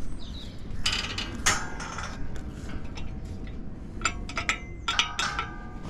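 Metallic clinking and rattling in two bouts, about a second in and again around four seconds in, with short ringing tones after the clinks, over a steady low rumble.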